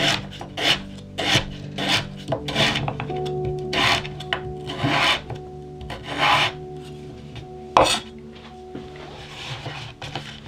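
Chef's knife slicing through raw purple sweet potato and meeting a wooden cutting board. The cuts come quickly at first, about every half second, then slow to longer, drawn-out strokes.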